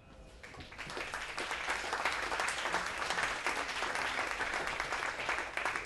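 Audience applauding: many hands clapping, swelling over about the first second and then holding steady.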